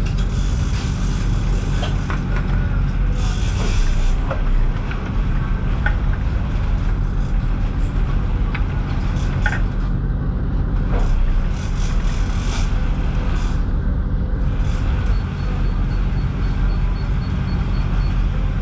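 Boat's engines running steadily with a low drone, under a hiss of wind and water. Scattered short clicks and knocks come from gear in the cockpit.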